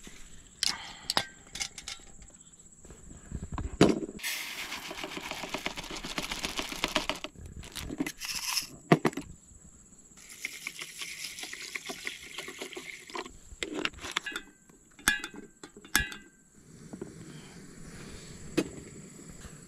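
Camp cooking gear handled by hand: a run of clicks and knocks from a gas stove, canister and aluminium mess tin, with two spells of pouring into the tin, the later one, starting about ten seconds in, water poured from a plastic bottle.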